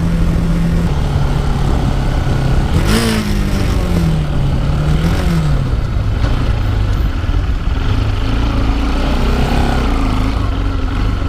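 Motorcycle engine running while riding, its note shifting down and then rising and falling with the throttle. A short burst of noise comes about three seconds in.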